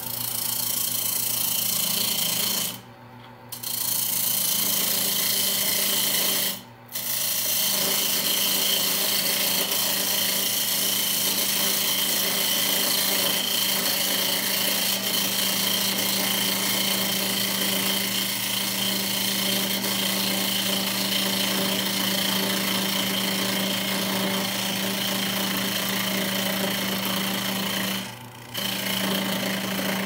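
Benchtop wood lathe running while a hand-held turning tool cuts into the end of the spinning wood blank: a steady scraping hiss of the cut over the lathe motor's hum. The cutting drops out briefly about three seconds in, again about seven seconds in, and near the end, leaving just the motor hum.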